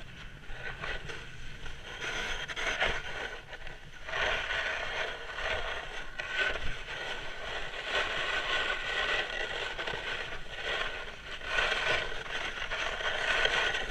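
Snowboard sliding and scraping over snow, a steady hiss that grows louder from about four seconds in and swells and eases in stretches.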